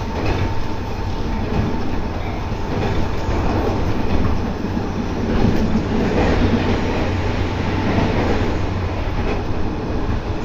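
Running noise of a JR West 213 series electric train, motor car KuMoHa 213-6, at full speed: a steady mix of traction motor hum and wheel-on-rail noise.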